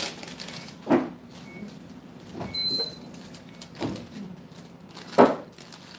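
Handling noise of things being moved about: four separate knocks and bumps, the loudest near the end.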